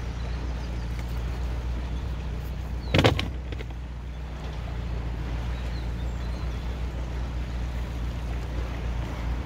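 Narrowboat's diesel engine idling with a steady low hum, over the rush of water pouring out of the lock as it empties. A single loud thump about three seconds in.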